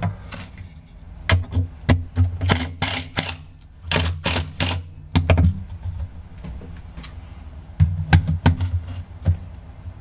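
Irregular clicks, taps and light knocks as a black panel is handled, set against the boat's fibreglass cabin wall and pressed into place by hand, coming in several quick clusters.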